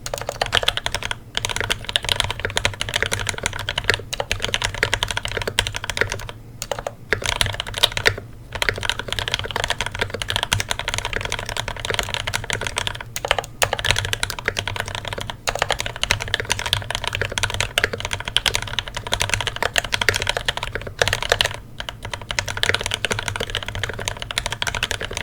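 Fast, continuous typing on a mechanical keyboard with lubed and filmed Marshmallow switches mounted on a brass plate, the keystrokes running together in a dense stream broken by a few short pauses.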